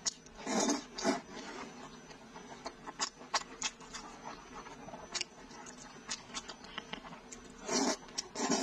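Close-miked eating: two loud slurps as strips of braised pig's trotter and wide noodles are sucked in from chopsticks, about half a second in and near the end, with wet chewing and lip-smacking clicks between.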